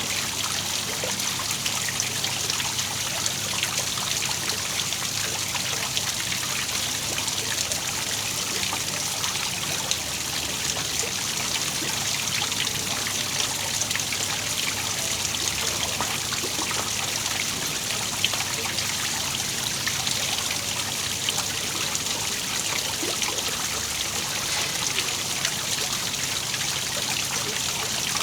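Small waterfall, water falling and splashing in a steady, even rush with a constant patter of small splashes.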